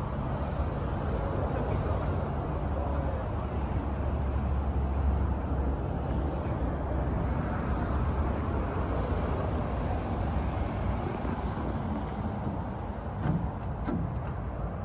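Steady low rumble of motor vehicles running, heaviest in the first half, with two or three sharp clicks near the end.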